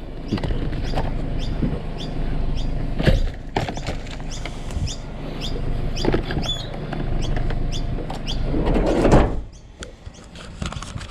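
Knocks and clatter of items being handled, with repeated short, high, falling bird chirps in the middle. About nine seconds in, a loud scraping slide ends in a door shutting, and after that everything is quieter.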